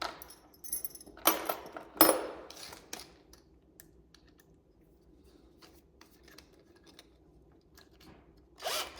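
Metal drill bits and a drill being handled: a few sharp clicks and rattles in the first two seconds, the loudest about two seconds in, then only faint handling noise and a short scrape near the end.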